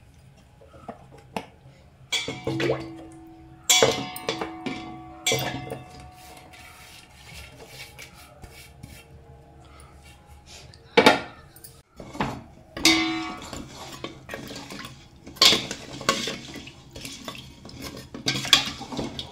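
Metal spoon clinking and scraping against a stainless steel pot while stirring coconut milk with jaggery, with a dozen or so sharp clinks, some leaving the pot ringing briefly.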